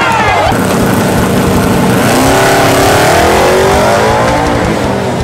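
Drag race car's engine at full throttle, loud and steady, its pitch climbing and then dropping between about two and four and a half seconds in.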